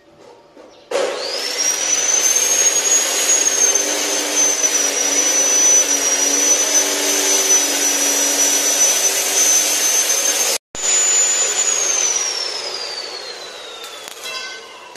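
A high-speed electric motor spins up about a second in and runs with a loud, steady high whine. It cuts out briefly, then winds down with a steadily falling whine over the last few seconds. A few short crackles come near the end.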